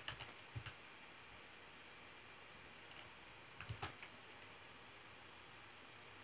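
Near silence, broken by a few faint clicks from a computer mouse and keyboard: several near the start and a couple close together about four seconds in.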